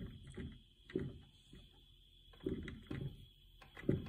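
Black plastic fuel sump housing handled on a wooden workbench while its small bolts are backed out with an Allen key: a few short, dull knocks and rubs, about a second apart, with quiet between.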